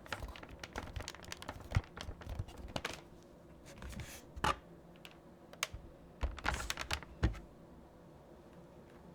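Keys of a Logitech K480 membrane keyboard being pressed in irregular runs, each key a sharp click, with a pause in the last second or so. This is the cheap-sounding key noise the owner names as a reason to replace the keyboard.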